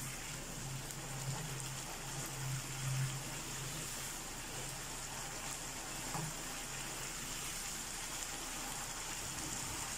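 Thick masala frying in oil in a nonstick pan over a raised gas flame, stirred with a spatula: a steady sizzling hiss.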